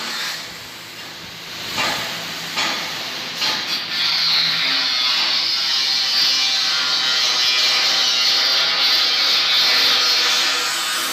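Electric arc welding: a few short crackles as the arc is struck, then from about four seconds in a steady, frying crackle-hiss as a bead is run, cutting off near the end.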